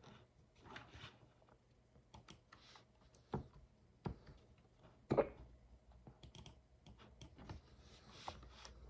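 Typing on a computer keyboard, scattered key clicks, with a person hiccuping: several sudden louder sounds, the loudest a sharp hic about five seconds in.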